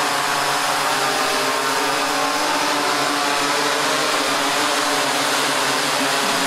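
Six-rotor camera drone hovering close, its propellers buzzing steadily in a whir of several layered tones over a broad rushing hiss.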